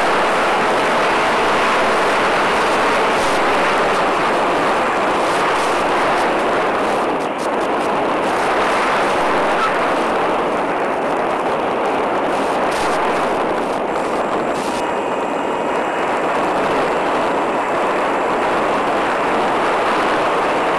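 Steady rushing noise carried on the audio channel of an analog 5.8 GHz FPV video link while the model aircraft is in flight, with a few faint crackles in the middle.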